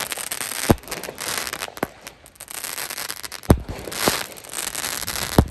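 Consumer aerial fireworks going off overhead: about five sharp bangs at uneven intervals, with a dense crackling of bursting stars between them.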